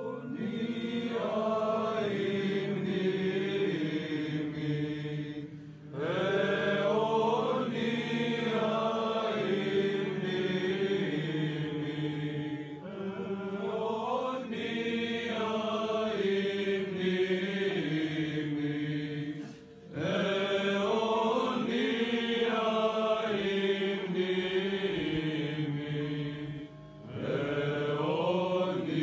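Orthodox church chant: voices sing a slow melodic line over a held low note, in phrases of about six or seven seconds with short breaks between them.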